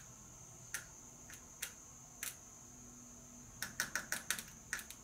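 Short, sharp clicks and snaps of wire ends being touched to battery leads to power a motorcycle fuel pump directly: a few scattered ones, then a quick run of them in the second half. The contacts spark while the pump itself stays silent, which the owner takes as a sign that it could be shorting out or that the fuel pump is bad.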